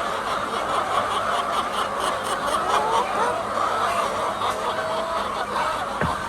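A flock of laying hens clucking together: many overlapping short calls in a steady din. A single low knock comes near the end.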